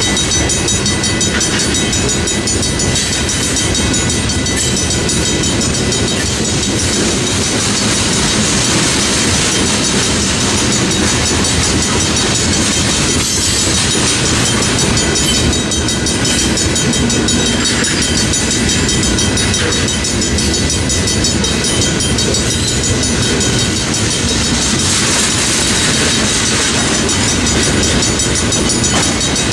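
Tank cars of a freight unit train rolling past in a continuous steady clatter of wheels over the rails, with steady high-pitched ringing tones above it.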